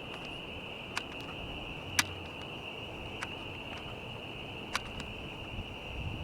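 Steady high buzzing of insects, with a handful of faint sharp clicks or snaps, the clearest about two seconds in.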